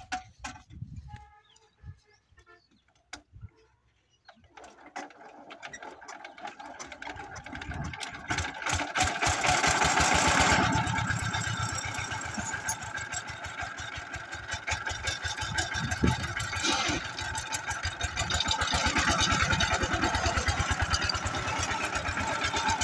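Single-cylinder diesel engine of a power tiller starting up about four seconds in, its firing beats quickening as it comes up to speed and then running steadily, with a single knock about two-thirds of the way through. Before it starts there are only a few scattered clicks.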